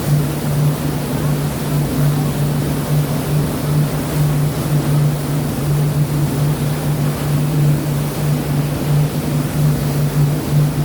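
Steady low drone of a boat's engine with a faint regular pulse, under a constant rushing of sea water and wind.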